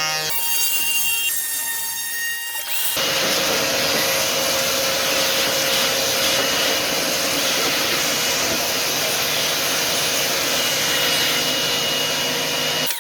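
CNC router spindle whining steadily as an 18 mm surfacing bit passes over the spoilboard. About three seconds in, the bit starts biting into the wood again and a steady, loud cutting noise joins the whine. The change in the cut is the sign of the board being out of flat: the bit cuts nothing in the low areas and takes wood off in the high ones.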